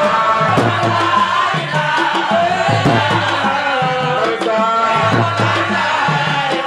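A lead male voice sings a religious chant into a microphone, with other men's voices joining in, over steady hand-drum beats. The melody glides and holds long notes.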